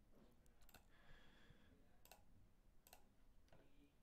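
Near silence: room tone with a handful of faint, separate clicks.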